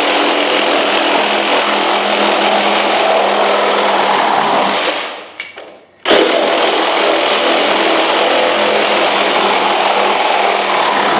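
Ridgid Gen5x 18-volt cordless reciprocating saw running at full speed in orbital mode, its blade tearing through the workpiece. It stops about five seconds in and starts cutting again a second later.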